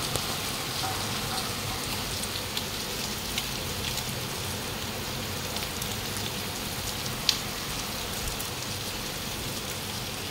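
Heavy rain falling steadily, with scattered sharp taps of drops, one louder tap about seven seconds in.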